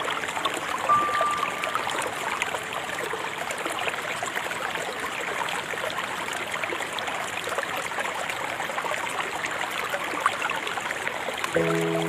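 River water flowing and babbling steadily. Soft sustained music chords come in near the end.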